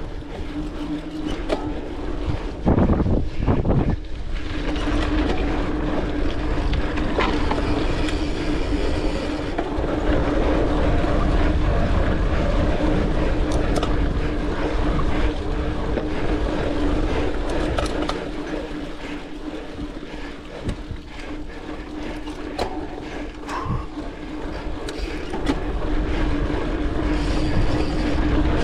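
Mountain bike ridden over a dirt trail: tyres rolling, the bike rattling over bumps, and wind rushing over the microphone, with a steady buzzing tone that drops out for a couple of seconds near the start.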